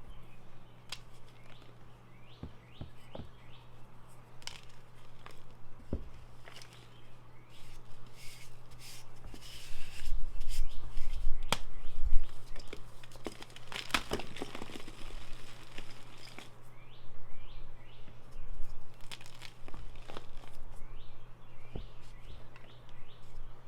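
Blocks of Ader gym chalk being mass-crushed, crunching and crumbling in a run of sharp cracks that is densest and loudest about ten to fifteen seconds in. Small birds chirp in short bursts in the background.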